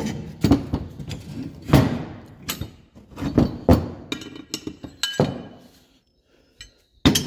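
Metal hitch-adapter parts and a wrench clanking and knocking as they are handled and lifted: a run of sharp metal knocks, some ringing briefly. It eases off near the end, then comes one more loud clank.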